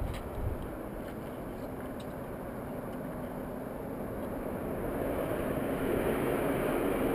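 Distant engine rumble that swells slowly over several seconds and is loudest near the end, as of a motor vehicle or aircraft passing at a distance.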